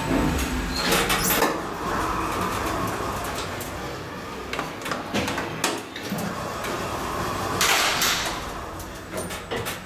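Schindler EuroLift elevator's automatic sliding car doors working after the car stops at a floor: sharp clicks about a second in, then the rush of the door panels sliding. A second door slide comes near the end.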